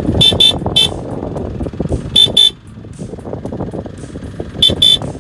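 The original horn of a 2020 Mitsubishi Montero Sport, heard from outside, honked in seven short, high-pitched toots: three, then two, then two. The owner finds it weak for so big a vehicle. A steady low rumble runs underneath.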